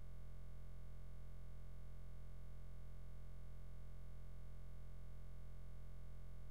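A steady low electrical hum with a faint buzz above it, unchanging throughout.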